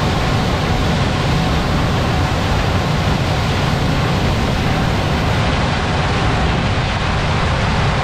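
Claas Lexion 8800 combine harvester running steadily as it harvests corn, a continuous even machine noise heaviest in the low end.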